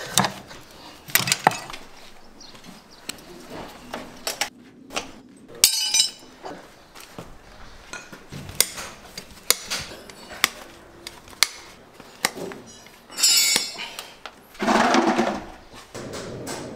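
Farrier's steel tools clinking and knocking against a horseshoe and hoof, a string of sharp separate metallic clicks and clanks, with a couple of brief scraping hisses.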